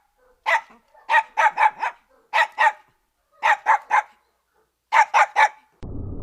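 A dog barking in quick runs of two or three barks, about a dozen barks in all, with short pauses between the runs.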